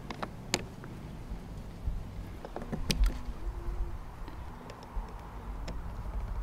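Scattered small clicks and snaps of hands crimping and fitting metal pins into plastic solar-panel wire connectors, the sharpest about three seconds in, over a low rumble.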